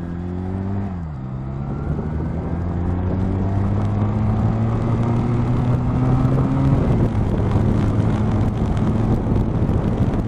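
Honda Rebel motorcycle engine under way. Its note dips about a second in, then rises slowly for several seconds as the bike gathers speed. Around seven seconds in it drops abruptly, as with a shift up, and then holds steady, under a growing rush of wind and rain noise.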